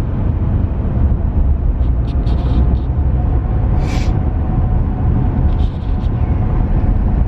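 Steady low rumble of a car driving, heard from inside the cabin, with a few faint ticks and a short hiss about four seconds in.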